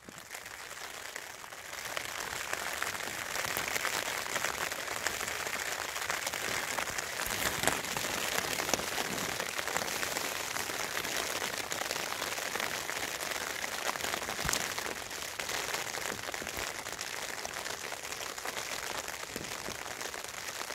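Rain falling on a Vango tent's flysheet, heard from inside the tent as a dense, steady hiss of countless small drop hits. It builds over the first couple of seconds, then holds steady.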